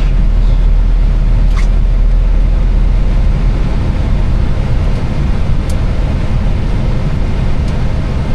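Steady cockpit noise of an Airbus airliner on final approach: a loud, even rush of airflow and engine noise, with a few faint clicks.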